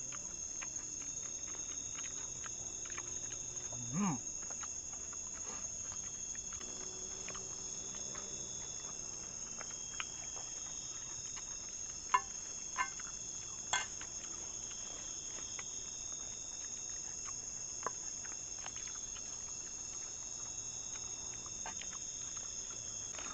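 Steady, high-pitched chorus of insects, with a few sharp clicks and knocks in the middle and one short low sound about four seconds in.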